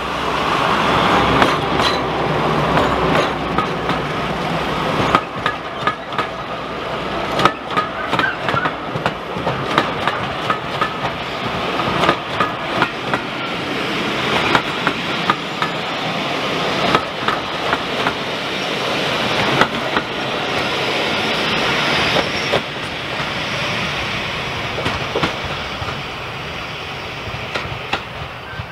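Railway passenger coaches passing at close range, their wheels clacking over the rail joints in a repeated rhythm over a steady rumble. The sound eases off near the end as the last coach moves away up the line.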